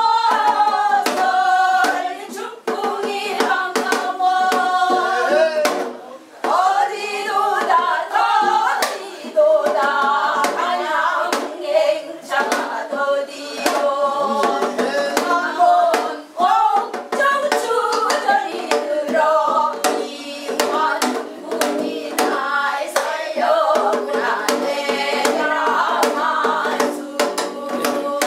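Several women singing a Korean namdo folk song together in a full-voiced, wavering style, accompanied by sharp strokes on a janggu hourglass drum.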